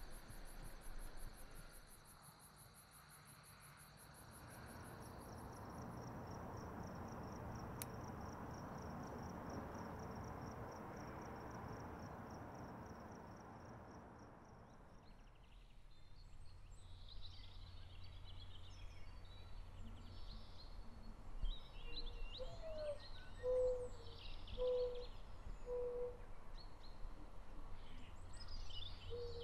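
Night ambience of crickets trilling steadily. About halfway through it gives way to morning birdsong: scattered chirps and a bird repeating a short low note several times.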